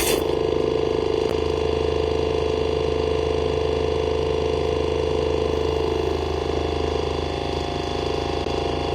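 Waterpik water flosser's electric pump motor running with a steady whir.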